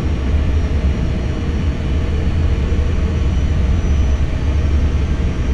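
Steady cockpit noise of an Airbus A320 on final approach: a strong, even low rumble with a rushing haze above it, from the airflow and engines.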